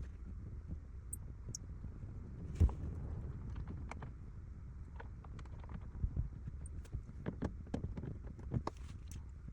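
Scattered light clicks and knocks from parts being handled inside a car during interior disassembly, with one louder thump about two and a half seconds in.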